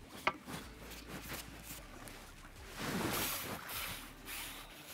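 Water splashing as a hooked skimmer bream is played to the surface and drawn over a landing net. The splashing is loudest about three seconds in, with a sharp click just after the start and another near the end.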